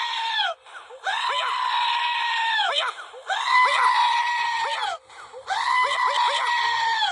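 A run of long, high-pitched screams, each held steady for about two seconds with short breaks between.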